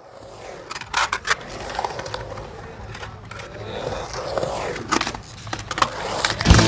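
Skateboard rolling on a skatepark surface, with several sharp clacks of the board's tail and wheels hitting the ground from tricks and landings. Rock guitar music cuts in just before the end.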